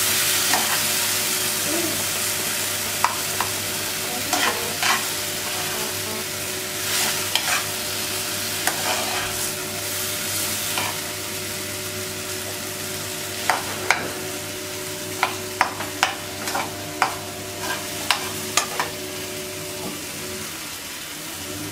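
Tomatoes and chopped vegetables sizzling in a frying pan on a gas burner while a metal spoon stirs them, clicking and scraping against the pan. The clicks come thickest in the second half, then stop shortly before the end, leaving only the sizzle.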